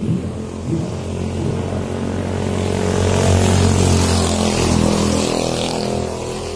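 Motor vehicle engine going past, growing louder to a peak about halfway through and then fading, with tyre hiss at its loudest.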